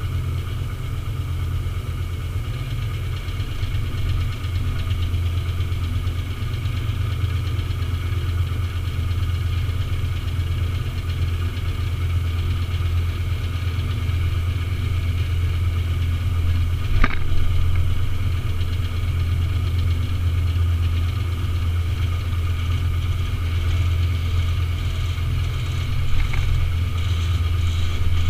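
Engine idling steadily, with one sharp knock about two-thirds of the way through.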